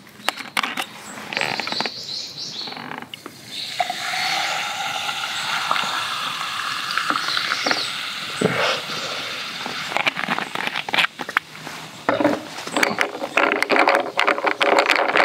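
Carbonated water poured from a plastic bottle over ice into a glass of whisky, a steady pour lasting several seconds. It is followed by a crackling fizz of bubbles and clicks of ice in the glass.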